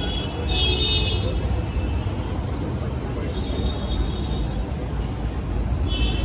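Busy street traffic: a steady low rumble of engines, with vehicle horns honking three times, about a second in, again midway for about a second, and once more near the end.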